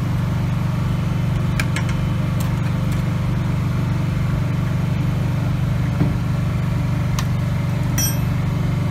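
An engine running steadily, with a few light clicks from a screwdriver fastening a metal air filter housing.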